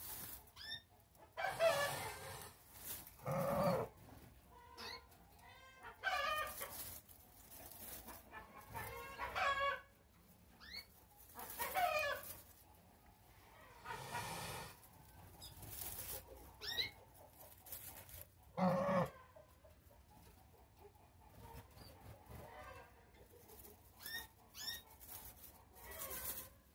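Brooding Kartuzy goose on its straw nest giving a series of short calls a few seconds apart, some soft and some louder. A few brief high chirps come between them.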